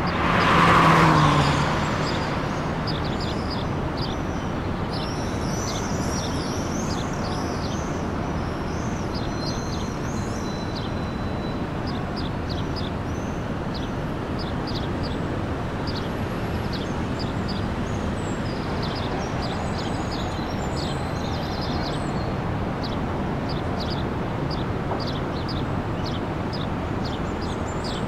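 Steady hum of road traffic with small birds chirping over it. A vehicle passes close in the first two seconds, its pitch dropping as it goes by. From about five seconds in, the birds give many short, high chirps.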